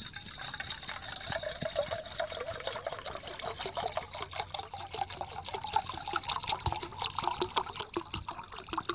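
Water poured from a plastic bottle into a stainless steel cook pot, splashing steadily, with a tone that rises slowly as the pot fills.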